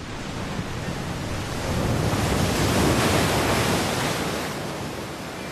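Sea surf: a wave surges in and breaks against rocks, rising to a rushing peak about two to three seconds in, then easing off.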